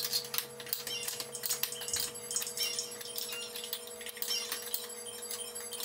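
Wrench clinking and tapping against a nut on the base of a bench vise as it is fitted and turned: a run of small, irregular metallic clicks.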